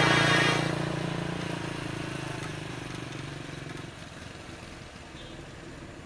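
A tour bus's telolet horn, a multi-tone musical air horn, sounding its chord and cutting off about half a second in. The bus's engine and tyres then fade steadily as it drives away.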